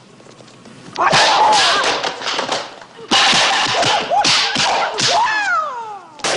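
Kung fu film fight sound effects: after a brief lull, rapid sharp punch and kick impacts with whip-like snaps, mixed with shouted fighting cries, one falling steeply in pitch near the end.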